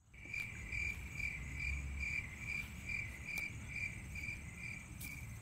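Cricket chirping in a steady, even rhythm, about two and a half high chirps a second, over a faint low rumble.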